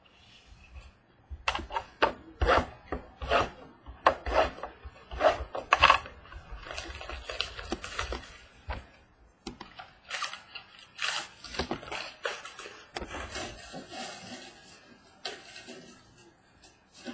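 Hands tearing open a sealed cardboard hobby box of Topps Museum Collection baseball cards: a quick series of sharp rips and scrapes over the first few seconds, then a longer stretch of rustling, crinkling and cardboard rubbing.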